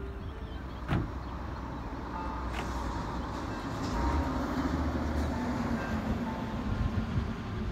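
Audi tow car's engine running at low revs, with tyre noise on the asphalt, as it slowly backs a caravan trailer; a single sharp knock about a second in.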